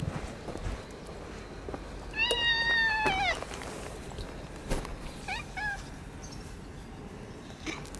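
Orange tabby cat meowing: one long meow of about a second that drops in pitch at the end, then two short meows a couple of seconds later. A single sharp click falls between them.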